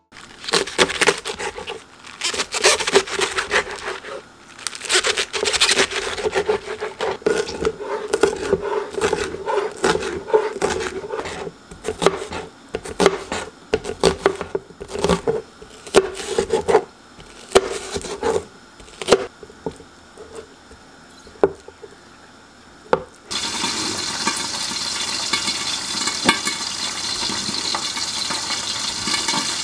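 Kitchen prep sounds: irregular rubbing, scraping and light knocks on a work surface and dishes, then a water tap turns on about three-quarters of the way through and runs steadily.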